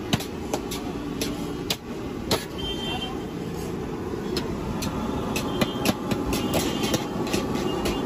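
Metal spatula striking and scraping a large iron wok as fried rice is stirred and tossed, in sharp irregular clanks, over a steady background roar.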